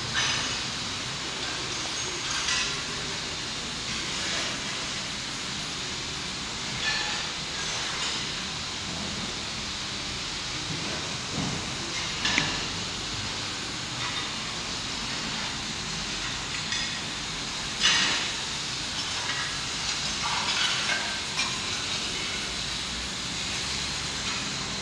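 Steady hiss of background noise with scattered light clicks and knocks, the loudest about eighteen seconds in.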